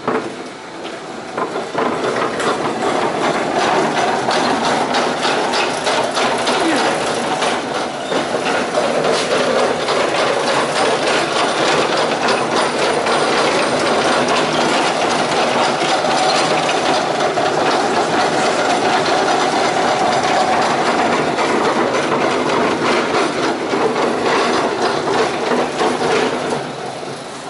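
Metal-cutting bandsaw rolled on its wheels across a concrete shop floor. It makes a continuous loud clattering rattle that starts about a second and a half in and stops near the end.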